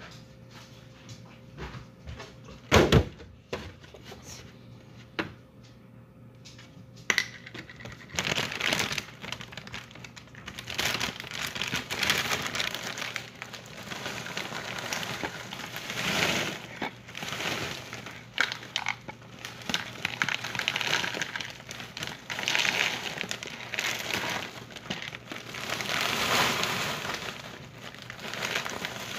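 A few sharp knocks, then from about eight seconds in a plastic cereal bag crinkling as cereal is poured and rattles into a plastic bowl, in repeated swells.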